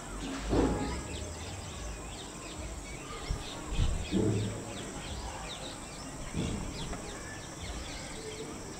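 Outdoor ambience with many small birds chirping all through. A few low rumbles on the microphone, the loudest about half a second in and around four seconds.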